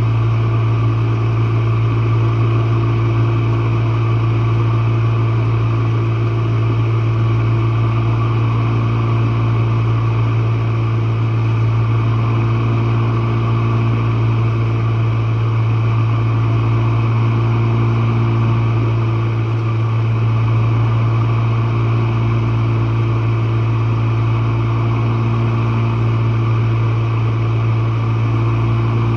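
Jenn-Air dishwasher running, heard from its bottom: its pump motor gives a loud, steady hum with a constant rushing noise over it, unchanging throughout.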